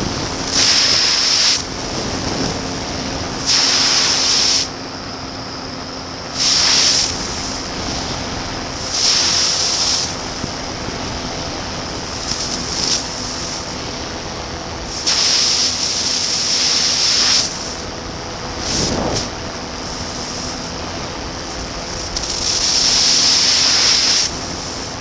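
Flexwing microlight trike's Rotax 912 engine droning steadily in flight, under airflow rushing over the microphone in repeated loud gusts every few seconds.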